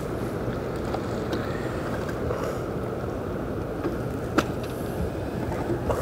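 Wind blowing over the microphone: a steady low rush of noise, with one sharp click about four and a half seconds in.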